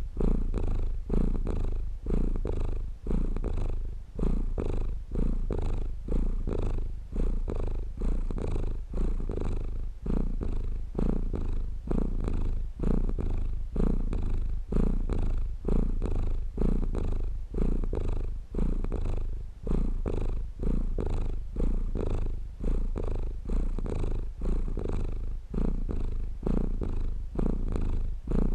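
Domestic cat purring steadily, a low rumble that pulses in an even, repeating rhythm.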